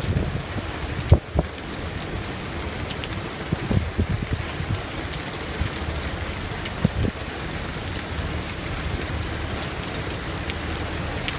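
Heavy rain falling and pattering on hard surfaces: a steady hiss dotted with fine drop ticks, with a sharp thump about a second in.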